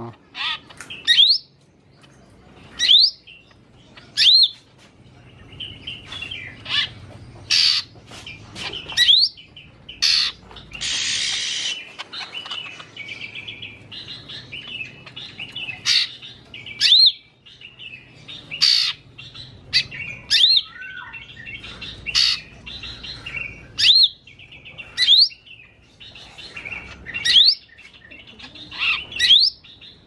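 Lesser green leafbird (cucak ijo mini) singing: loud, sharp sweeping notes every second or so between runs of chattering warble, with a harsh rasp about ten seconds in. Its song is full of mimicked calls of other birds.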